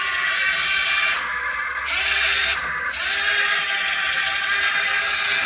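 Radio-controlled model excavator's electric motors and hydraulic pump whining steadily, the pitch shifting briefly about three seconds in.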